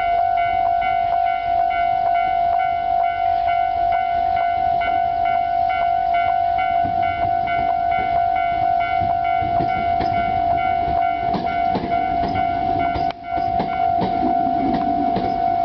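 Tobu railway level-crossing alarm ringing steadily, its electronic bell repeating on one pitch in the crossing's older standard tone. From about seven seconds in a train runs over the crossing, its rumble and wheel clatter growing under the bell.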